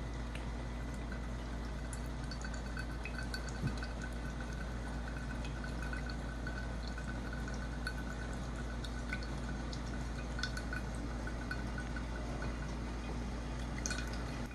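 Coconut water trickling and dripping from a hole pierced in a coconut into a ceramic bowl, with small scattered drip ticks, over a steady low background hum.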